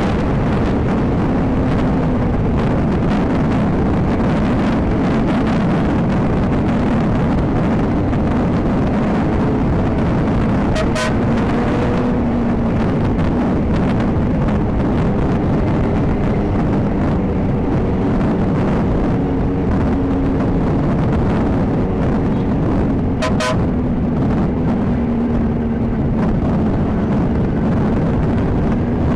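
Motorcycle engine running on the move under heavy wind rush, its pitch slowly rising and falling. Two short sharp sounds stand out, about 11 and 23 seconds in.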